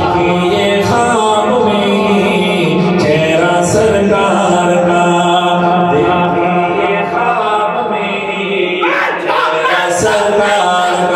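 A man singing a naat unaccompanied into a microphone, drawing out long, wavering sung notes with no clear words.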